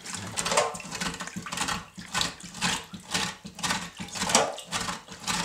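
Perch being scaled under water in a steel sink with the coarse side of a box grater: repeated scraping strokes, about two a second, with water sloshing.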